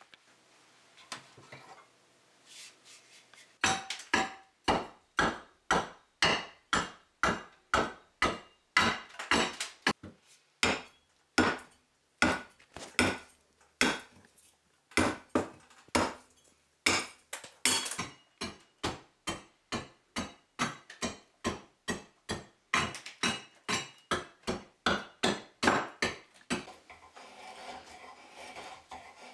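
Short-handled hatchet hewing a split blank of hard, dry hickory, a long run of sharp chopping strokes about two a second with short pauses. Near the end the chopping gives way to steady scraping strokes as the blank is shaped by hand.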